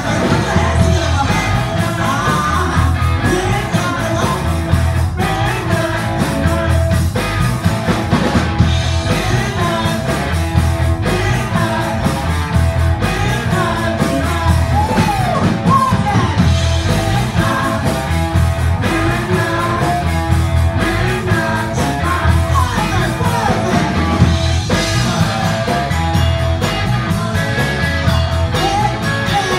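Live band playing a song, with singing over guitar and a steady, pulsing bass.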